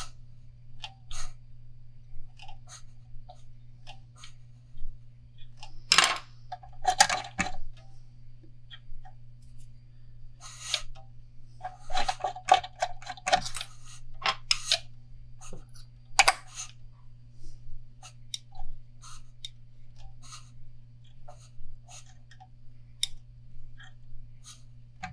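Small clicks and taps of a fishing rod being turned by hand in a rod-wrapping stand while thread is guided onto the blank, with a few louder bursts of clatter in the middle. A steady low hum runs underneath.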